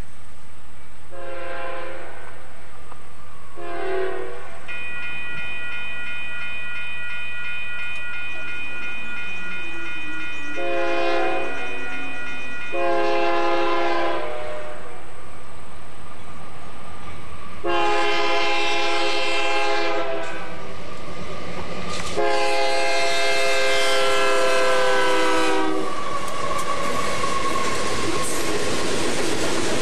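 Diesel locomotive's multi-note air horn sounding six blasts, the later ones longer and louder as the train draws near. Near the end the rumble of the passing train rises.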